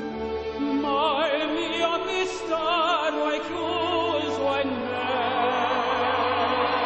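Male operatic tenor singing with a wide, wavering vibrato over an orchestral backing track. The voice comes in about a second in, and the sound grows fuller from about five seconds.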